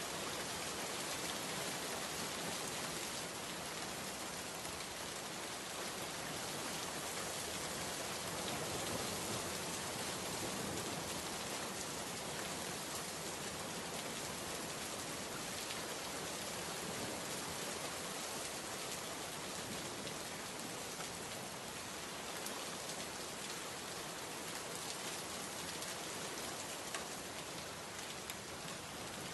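Steady rain falling on a window, an even hiss with no thunder.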